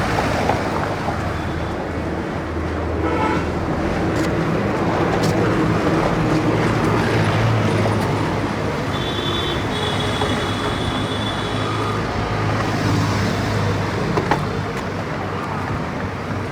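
Busy street traffic: motor vehicle engines running with dense, steady road noise. A high horn sounds for about two seconds, roughly nine seconds in.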